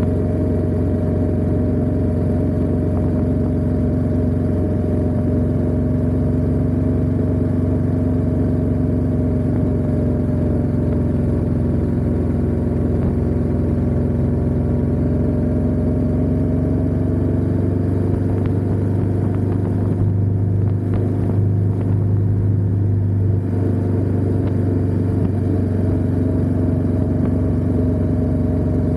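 Ducati Diavel 1260S's 1262 cc V-twin engine running steadily at low revs. Its pitch sags a little midway and climbs back near the end.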